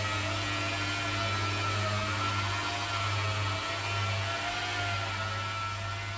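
Steady machine hum with a faint whine that drifts slightly up and down in pitch.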